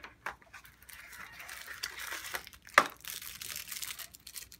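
Small clear plastic accessory bag crinkling and rustling as it is handled, with one sharp click a little before the three-second mark.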